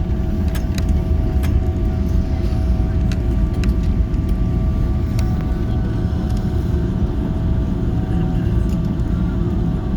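Airbus A340 cabin noise: a steady low rumble with an even engine hum, with a few faint clicks and rattles.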